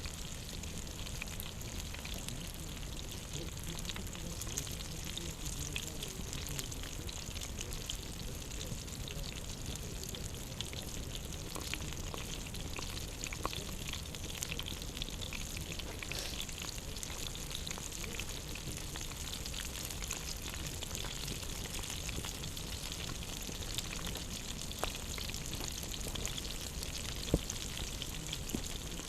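Food frying over an open campfire: a steady sizzle with many small crackles, and one sharper crack near the end.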